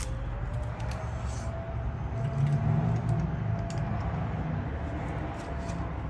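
Light metallic clicks and clinks of hand tools working on a spark plug, over a steady low rumble.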